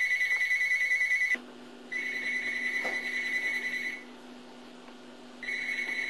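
Electronic digital alarm clock going off: a high, rapidly pulsing beep in three long bursts separated by short pauses.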